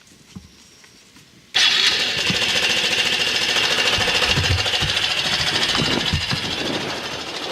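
Honda Super Cub's small single-cylinder four-stroke engine catches about a second and a half in and then runs steadily at a fast idle.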